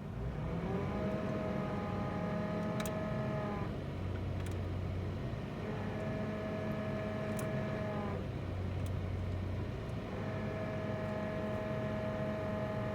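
A 2005 Toyota Tacoma, air conditioning on, is given gas three times, and each time a high whine comes in, rising in pitch and then holding, over the steady engine sound. The whine shows up only with the AC on and the throttle pressed; its cause is unknown.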